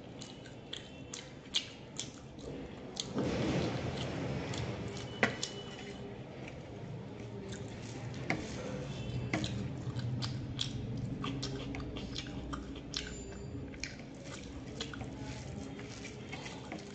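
Close-up eating sounds: chewing with many small mouth clicks, and fingers squishing rice and chicken curry against a steel plate, with a louder stretch of it about three seconds in.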